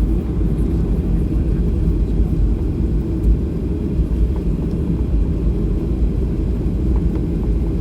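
Steady low rumble inside the cabin of a Boeing 737-800: noise from its CFM56 jet engines and the airflow, heard from a passenger seat.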